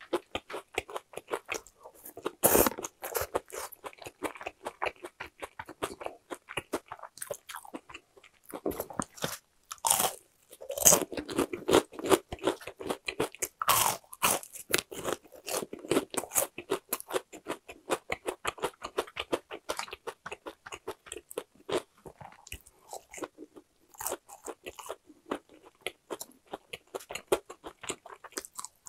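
Close-up crunching and chewing as a person bites into crispy-coated boneless fried chicken, a steady run of crackly chews with several louder crunchy bites.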